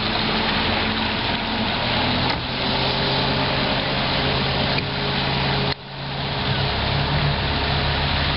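Outboard motor of an open passenger boat running steadily under way, with wind and water rushing past. About six seconds in the sound drops sharply, then comes back within a second.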